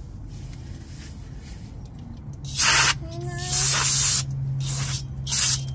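Aerosol can sprayed through its straw nozzle in three short hissing blasts, the second the longest, starting about two and a half seconds in.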